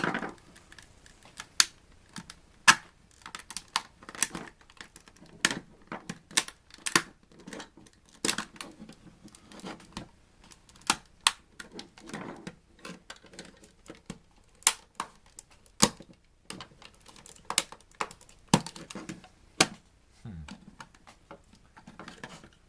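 Casing of a discarded satellite antenna unit being pried apart along its sides by hand: irregular sharp clicks and knocks, a few a second, as parts and connectors are worked loose.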